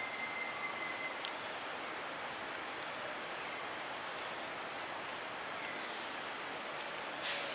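Outdoor woodland ambience: a steady hiss with a thin, high, continuous insect drone, a few faint clicks, and a sharper click or rustle near the end.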